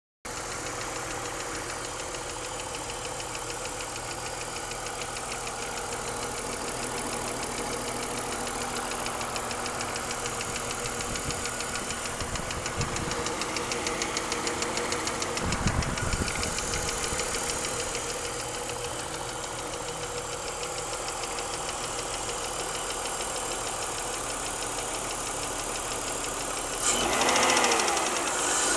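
BMW E46 323i inline-six engine running with a fast, steady metallic ticking from the top end, which persists after a cylinder head rebuild and valve job. The sound gets louder for a moment near the end.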